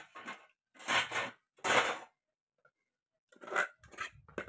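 A few short scraping strokes: a small steel measuring cup scooping and rubbing through chilli powder in a steel bowl.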